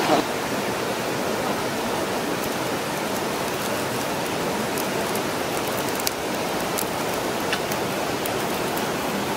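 Small fire of dry twigs burning, with sharp crackles every second or so over a steady rushing hiss.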